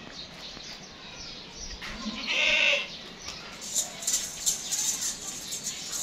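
A goat bleats once, about two seconds in, a call of about half a second, with a few light clicks and knocks after it.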